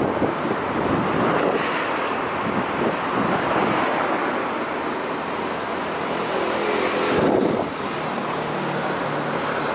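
Urban road traffic: a steady wash of passing cars, swelling a little about seven seconds in, with a faint steady engine hum under it in the second half.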